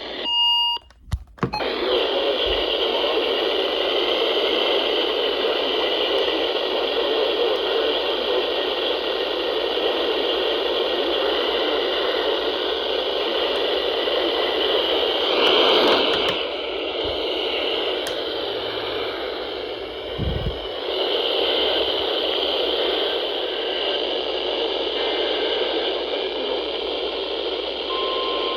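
Weather radio receiver hissing with static: a steady rushing noise with no voice on the channel, after a short beep and a couple of clicks at the start. A steady single tone comes on near the end.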